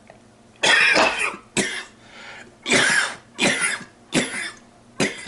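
A man coughing in a fit of about six loud, harsh coughs in quick succession.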